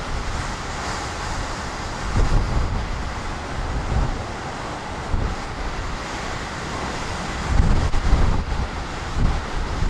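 Storm gusts of around 120 km/h rushing through the trees, with low buffeting of the wind on the microphone. The wind swells and eases in waves, and the strongest gust comes near the end.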